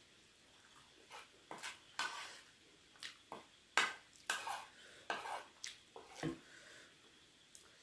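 A metal spoon and fork clink and scrape against a ceramic plate as noodles are scooped and gathered: a string of short, irregular clinks, with one duller knock about six seconds in.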